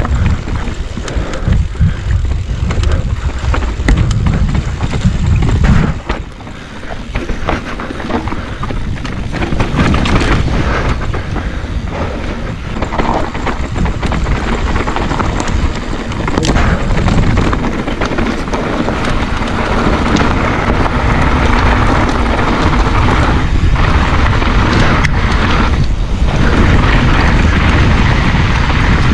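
A mountain bike descending a dirt singletrack trail: tyres rumbling over the ground with scattered knocks and rattles, and heavy wind buffeting on the microphone.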